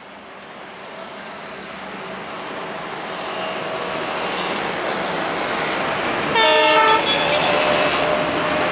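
An Indian Railways ALCO diesel locomotive hauling an express train approaches, its engine and running noise growing steadily louder. One short horn blast sounds about six and a half seconds in.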